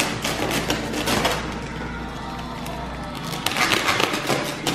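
Plastic wrapping of a compressed bale of pine wood shavings bedding crinkling and crackling as it is cut open at the top, in two spells of quick crackles, the second starting about three and a half seconds in.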